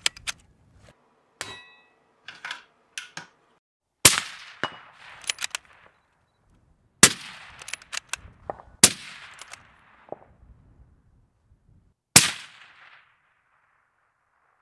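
Bolt-action rifle in a Magpul Pro 700 chassis fired four times, each shot followed by a ringing echo, with smaller metallic clicks of the bolt being worked before and between the shots.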